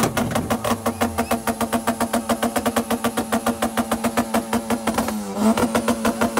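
Tuned car engine held on a two-step launch limiter: a steady engine tone broken by rapid, even bangs from the exhaust, about seven a second, with a brief dip about five seconds in.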